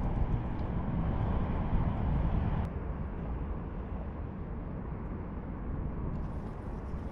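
Steady low outdoor rumble with no distinct source, louder for the first couple of seconds; a single sharp click about two and a half seconds in, after which it sounds a little duller.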